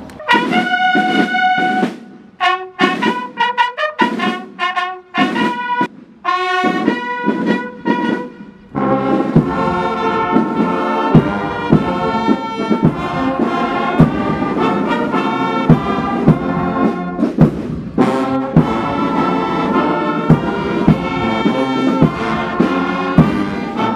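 Brass band playing: first a few separate held notes with short breaks, then from about nine seconds in a full, continuous brass ensemble over a steady beat.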